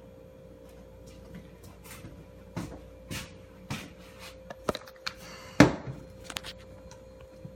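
Handling noise: a scattering of light knocks and rustles, with one sharper clack about five and a half seconds in.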